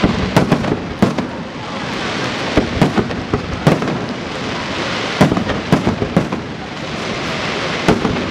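Aerial fireworks display: shells bursting in an irregular run of sharp bangs, some in quick clusters, over a continuous rushing noise.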